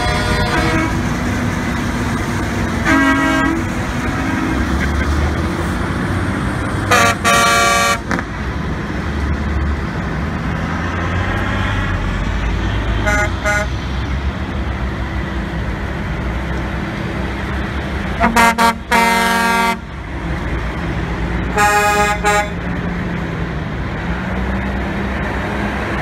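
Truck air horns honking in short blasts, about six times, the longest about a second, over the steady running of diesel truck engines and a forage harvester.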